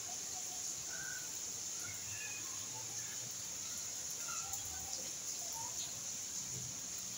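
Steady hiss of rain with many short, scattered bird chirps over it.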